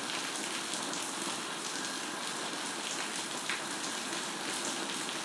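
Chopped coconut flower sizzling steadily in a hot pan as it is stirred and dried out, with one faint click of the spoon about three and a half seconds in.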